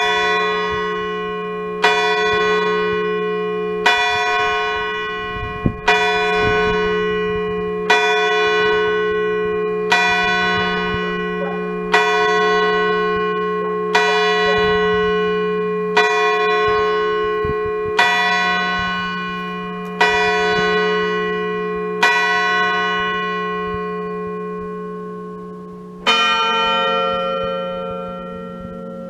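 Church clock striking half past twelve on bronze Grassmayr bells: twelve hammer strokes on the big F3 bell, about two seconds apart, each left ringing. After a pause of about four seconds comes a single stroke on a higher A3 bell for the half hour.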